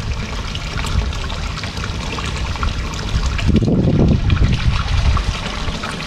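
Steady trickle of running water from a koi pond, with a brief low rumble about halfway through.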